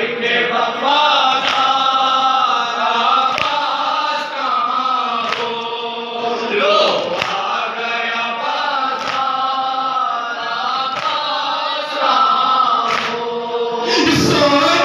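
A crowd of men chanting a noha, a Shia mourning lament, in unison, punctuated by rhythmic chest-beating (matam) about once a second. Near the end a louder, fuller voice comes in, the lead reciter at the microphone.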